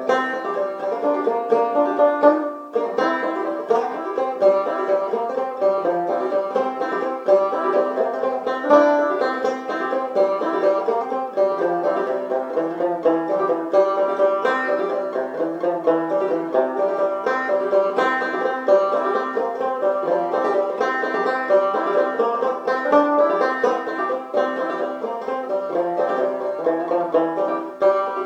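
Open-back five-string banjo played clawhammer style in double C tuning (gCGCE), a solo tune in waltz time with picked notes and brushed strums ringing continuously.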